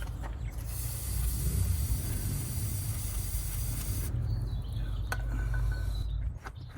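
Aerosol spray can sprayed in one continuous hiss of about three and a half seconds, starting about a second in and cutting off suddenly, over a steady low rumble.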